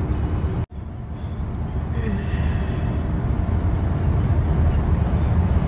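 Steady low rumble of a car heard from inside the cabin: engine and road noise. The sound cuts out for an instant under a second in, then carries on.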